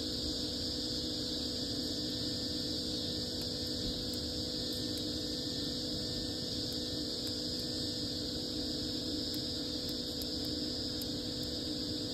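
Wood fire burning in an outdoor fireplace, with faint, sparse crackles. Under it runs a steady high-pitched drone and a low steady hum.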